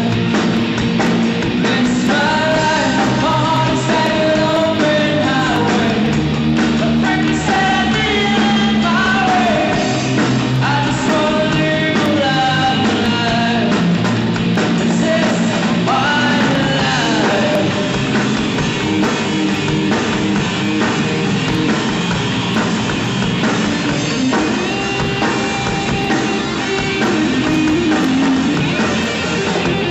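Live rock band playing: drum kit, electric guitars and bass, with vocals sung over them, most prominent in the first half.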